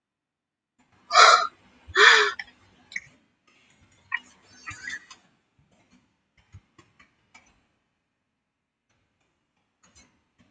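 A woman breathing out sharply twice in quick succession, followed by a few softer breathy noises and faint scattered clicks.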